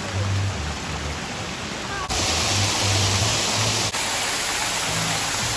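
Water from an artificial rock waterfall splashing steadily into a pond, over background music with a low bass line. The water noise gets suddenly louder and brighter about two seconds in.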